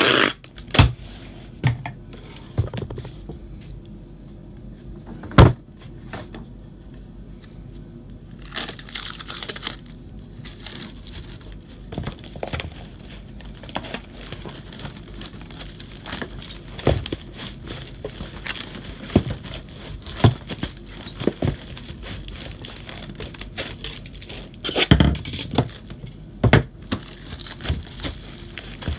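Irregular knocks and clunks with short bursts of rustling and crinkling, a loud knock at the very start and a cluster of knocks near the end; no motor is running.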